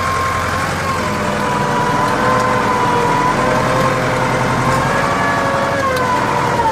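Hürlimann H-470 tractor running steadily while pulling a plough, a low engine rumble under a high whine that wavers slowly in pitch.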